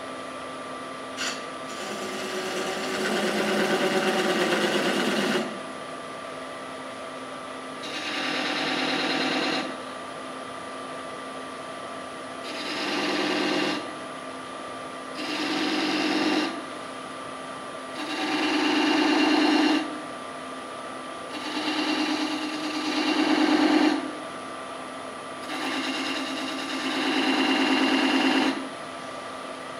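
Wood lathe running with a steady hum while a pointed turning tool cuts grooves into the spinning wooden blank, about seven separate cuts of a second or two each.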